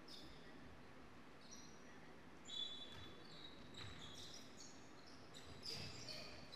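Basketball sneakers squeaking on a hardwood court in short, high-pitched chirps, with a ball bouncing a few times, all faint.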